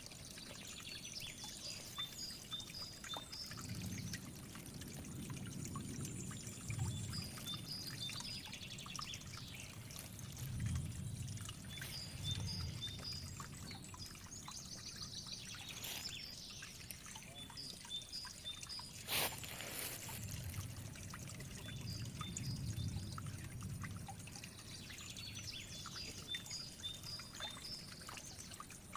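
Water trickling steadily, with a bird singing groups of quick repeated high notes every few seconds. One sharp click comes about two-thirds of the way through.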